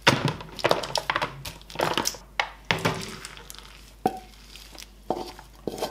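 Cooked sticky rice being tipped and scraped out of a pot into a thin plastic storage box, with crinkling of the plastic and a series of irregular clicks and knocks.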